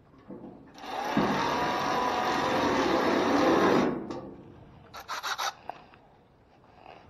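A scraping, rubbing noise lasting about three seconds, then a quick run of clicks about five seconds in.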